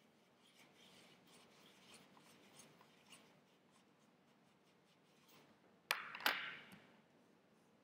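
Paintbrush scrubbing paint around in a well of a plastic palette, a faint scratchy rubbing, then two sharp clacks close together about six seconds in.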